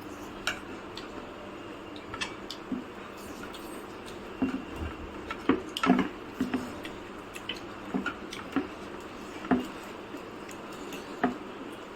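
Cutlery clinking and tapping against plates and bowls during a meal: scattered short clicks all through, coming thickest about halfway, over a faint steady hum.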